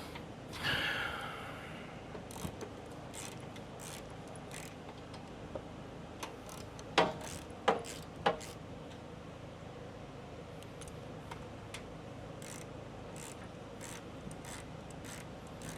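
Scattered clicks and clinks of hand tools and metal hardware being handled. There is a short scraping rustle about half a second in, and three louder metal clinks in quick succession about seven to eight seconds in.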